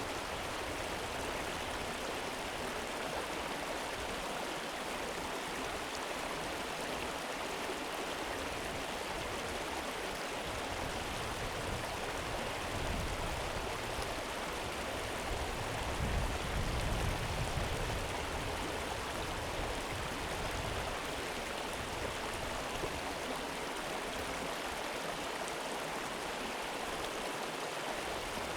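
A river flowing: a steady, even rush of water. A low rumble swells for a few seconds near the middle.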